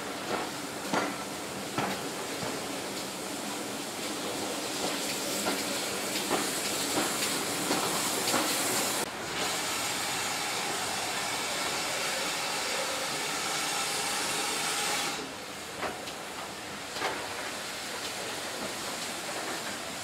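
Steam train rolling slowly, heard from a carriage window, its wheels clicking irregularly over rail joints. A loud steam hiss builds through the middle and cuts off suddenly about three-quarters of the way through, leaving the quieter running and clicks.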